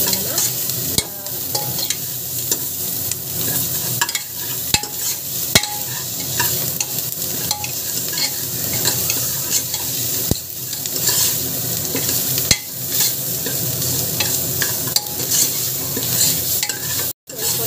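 Chopped onions sizzling steadily as they sauté in hot oil in a pan, being softened. A metal spoon stirs them, scraping and now and then knocking sharply against the pan, and the sound cuts out for a moment near the end.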